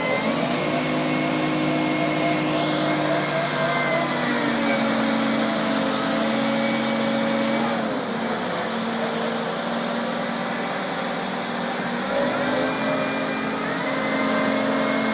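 Crane engine running steadily, its speed dropping about four seconds in, dipping again around eight seconds, and picking back up near the end.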